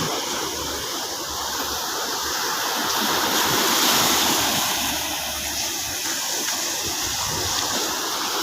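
Sea surf washing onto the beach, a steady rushing hiss that swells about four seconds in and eases off again.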